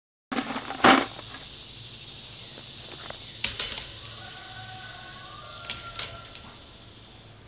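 Sharp metallic clanks and rattles of a wire hog panel against a steel T-post as it is fastened on. The loudest comes about a second in, with more near the middle and near the end, over a steady high insect drone.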